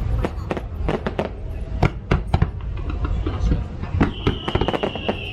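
Fireworks bursting in quick succession: many sharp bangs and crackles over a steady low rumble. About four seconds in, a thin high whistle starts and is held, falling slightly in pitch.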